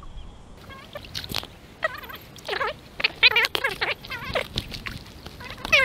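Animal calls: a series of short, high, wavering cries, several of them spread unevenly through these seconds.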